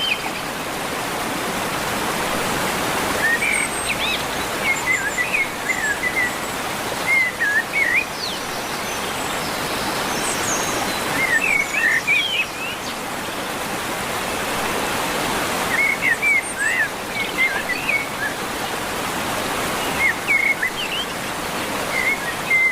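A songbird singing short bursts of quick, wavering chirps, repeated every few seconds, over a steady rushing noise like running water.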